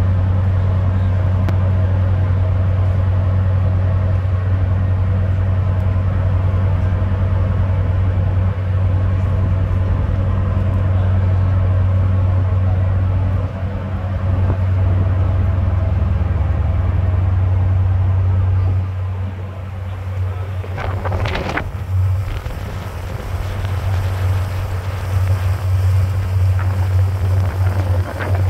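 Car ferry's engines droning steadily with a deep, even hum, heard from the open deck with wind on the microphone. Over the last few seconds the rush of the churning wake water joins in.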